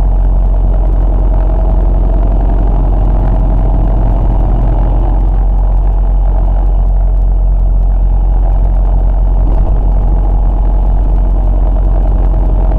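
Steady low engine and road drone of a moving vehicle, heard from inside its cab.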